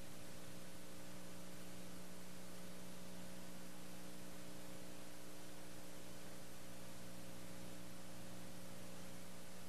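Steady electrical mains hum over a constant hiss, unchanging throughout, with no other sound.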